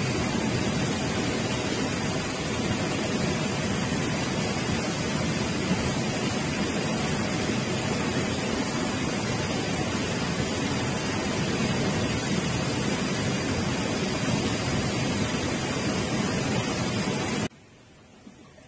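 Steady rushing of river water, an even hiss-like roar, that drops off abruptly near the end.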